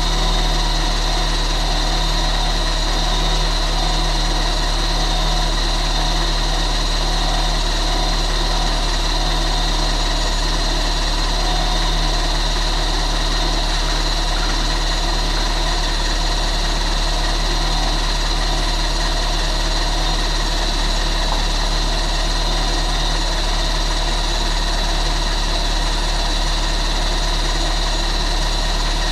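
Turbocharged Honda S2000 engine idling steadily on its first start-up after being built.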